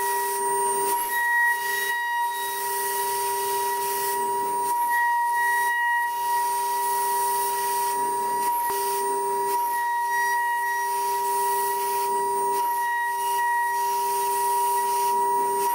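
DATRON M8Cube CNC mill's 2.0 kW high-frequency spindle whining at a steady high pitch as a small end mill cuts grooves into an aluminium panel, with a hiss of cutting over it. The lowest part of the whine drops out briefly several times as the cutter moves along its path.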